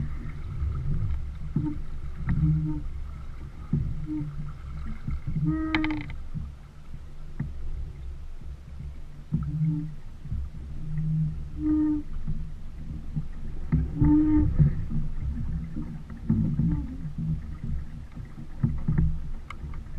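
A small sailboat under way: wind rumbling on the microphone and water rushing along the hull, with a few short, high squeaks every few seconds.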